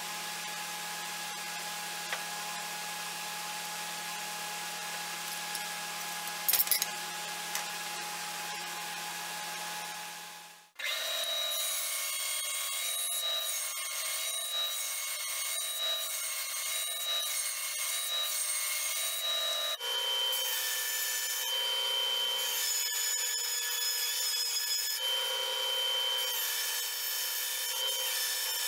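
A steady low hum, then about eleven seconds in a band saw cutting through an Osage orange handle block, with several whining tones that shift as each cut goes on.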